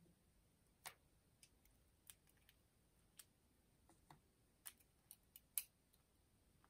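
Faint, scattered light metallic clicks and taps of small steel planetary gears from a Makita DF001G drill-driver's gearbox being picked out and set down, about a dozen in all, the loudest near the end.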